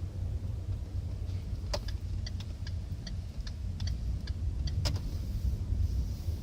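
Citroën C4 on the move, a steady low rumble of engine and road, with a run of light clicks and rattles from about two to five seconds in.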